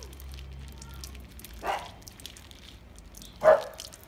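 Water dribbling and dripping from a squeezed plastic bag that leaks, falling into a trough of water. Over it come two short, sharp calls about two seconds apart, the second louder.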